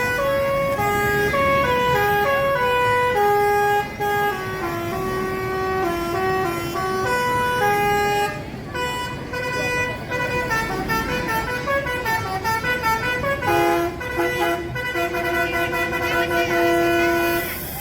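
Bus telolet horn, a set of tuned multi-tone air horns, playing a melody of held notes that step up and down, breaking off briefly about eight seconds in and then playing on.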